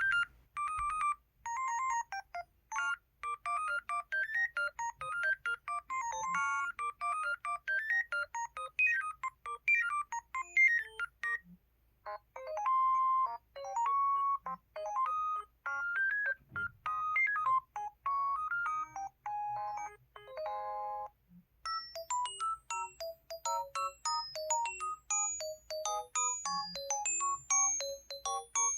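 LG-SU910 mobile phone ringtones playing in turn: short electronic melodies of quick single notes. One tune stops about 11 seconds in and a different one begins, and a third starts about 21 seconds in.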